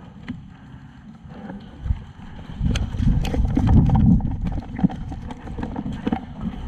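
Running footsteps thudding over wet, leaf-covered mud, heaviest a few seconds in, with sharp knocks scattered through.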